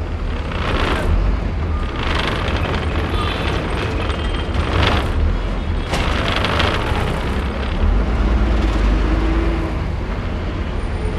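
Bus engine rumbling at low speed, heard inside the cabin, with several short air-brake hisses as it creeps through a toll lane.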